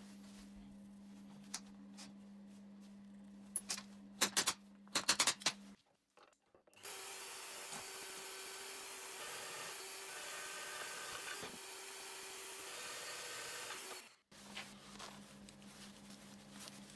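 A few sharp metal clinks of small steel parts being handled, then a bench drill press running steadily for about seven seconds while drilling a small steel bracket, which cuts off suddenly. After it come faint light clicks.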